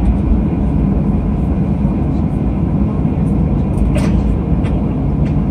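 Steady low rumble of a Boeing 737 jet heard from inside the cabin as it taxis onto the runway, engines not yet spooled up for the takeoff roll. A short click about four seconds in.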